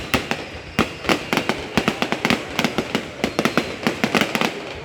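Fireworks display: shells bursting in rapid, irregular succession, several sharp bangs a second overlapping one another.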